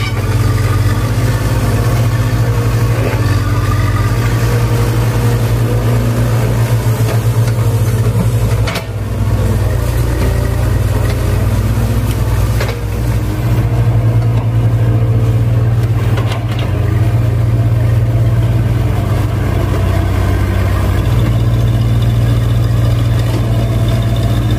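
Kobelco crawler excavator's diesel engine running steadily as it digs mud, a loud low drone with a brief dip about nine seconds in.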